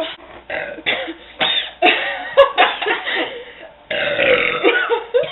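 A girl burping over and over after drinking Coke: a quick string of short burps, then a longer one about four seconds in.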